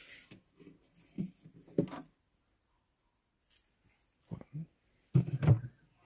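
Quiet handling of a Dometic CRX65 upright fridge: a few soft knocks and clicks as its door and freezer compartment are opened and handled.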